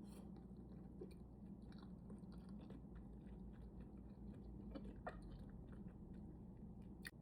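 Close-up chewing of sushi, faint wet clicks and smacks of the mouth at an irregular pace over a low steady hum.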